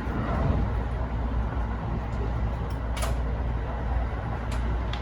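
Steady low rumble of a Kintetsu 80000 series Hinotori express train running, heard inside the passenger car. A few sharp clicks break through, the clearest about three seconds in.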